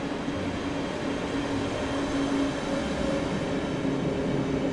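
Train running at the station, a steady rail rumble with a hum of a few held tones over it and no wheel clicks.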